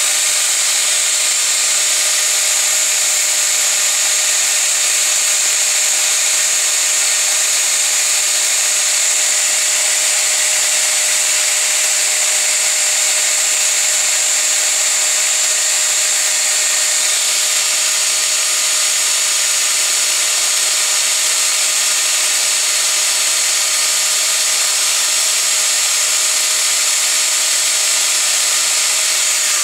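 Angle grinder with a sanding disc running steadily at full speed, sanding a coped profile into the end of a length of baseboard: a constant high-pitched whine with the hiss of sanding. The motor starts to wind down at the very end.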